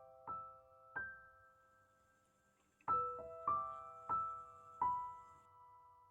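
Soft, slow piano music: single notes struck and left to ring out. Three notes in the first second are followed by about a second of near silence, then four more notes.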